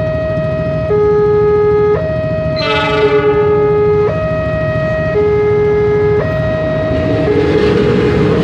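Level-crossing warning alarm sounding its two-tone signal, switching between a higher and a lower tone about once a second. About three seconds in, a diesel locomotive's horn gives one short blast. Near the end the approaching train's rumble grows louder under the alarm.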